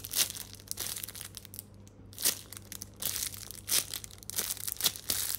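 A handmade paper squishy in a clear plastic bag being squeezed and handled: the plastic and paper crinkle in a series of short, sharp rustles, the loudest about two, three and a half and nearly five seconds in.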